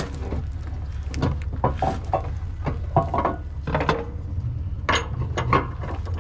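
Irregular metallic clinks and knocks as the reversing bucket of an Ultra-Jet 340HT/S waterjet is handled and lined up on the steering nozzle's pivot bushings, some clinks ringing briefly, over a steady low hum.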